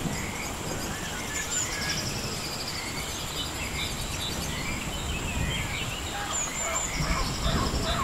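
Rainforest ambience: many birds chirping and whistling over a steady hiss of rain, with a constant high-pitched drone running underneath.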